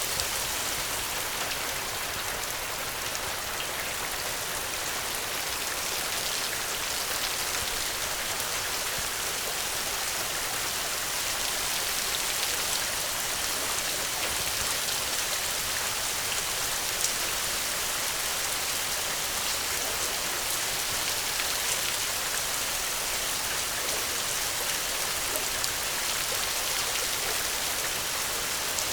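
Steady rainfall, an even hiss of many drops with a few single drops ticking out.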